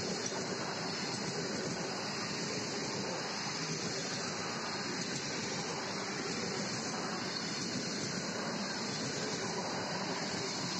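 ED4M electric multiple unit running past, a steady rushing noise with no distinct wheel clatter.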